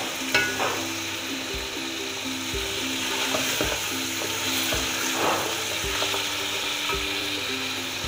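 Beef pieces sizzling as they brown in hot oil in an aluminium pot on full flame, stirred with a wooden spoon, with scraping against the pot. A ringing knock on the pot about half a second in.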